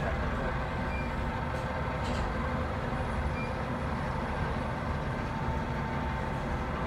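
Steady low engine rumble with a few faint steady tones above it.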